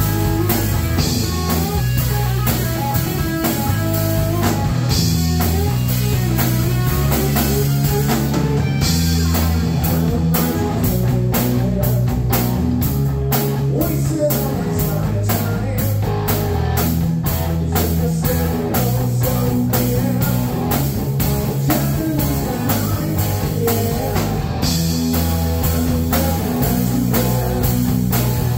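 Live rock band playing: electric guitar, electric bass and drum kit. For several seconds mid-way the drums turn to a run of evenly spaced sharp hits, with cymbals ringing before and after.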